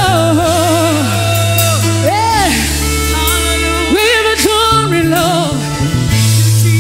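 Live gospel praise music: a singer holds long notes with a wavering vibrato over instrumental accompaniment with sustained low bass notes.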